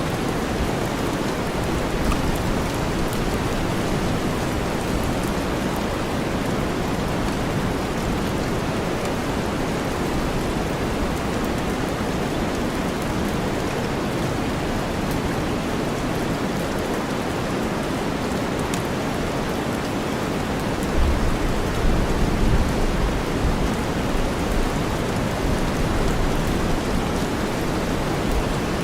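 Steady rain mixed with deep white noise, an even hiss with no pauses. About two-thirds of the way through, a low rumble of thunder rises for several seconds and fades.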